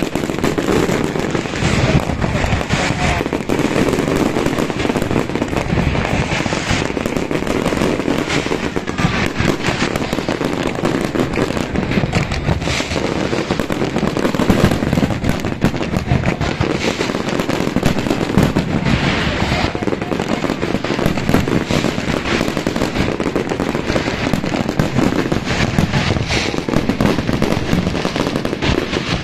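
Fireworks display with many shells bursting at once: a dense, unbroken run of bangs and crackle that keeps up at an even loudness throughout.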